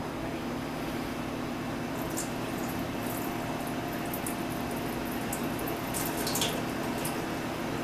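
Rice being rinsed in a small metal saucepan: the starchy rinse water is swished and then poured off into a stainless steel sink, with light, irregular splashing over a steady low hum.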